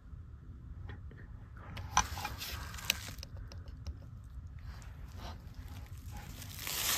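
Irregular rustling and crunching with a few sharp clicks, the loudest about two and three seconds in, and a louder rustle near the end.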